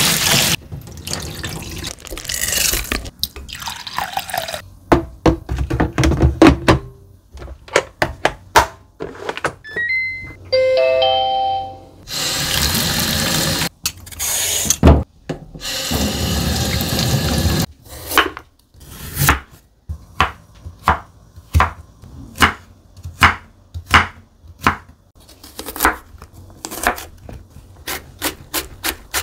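Kitchen sounds from cooking and eating fried rice: many sharp clicks and knocks of utensils and dishes, a short chime of stepping notes near the middle, and two bursts of hissing like running tap water, each about two seconds long.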